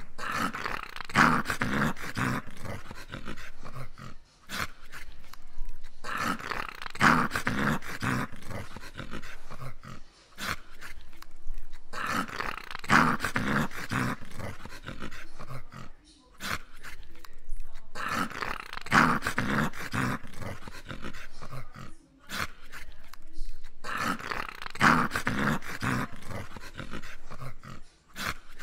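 English cocker spaniel snoring in its sleep: five long snores about six seconds apart, with short quiet pauses between breaths.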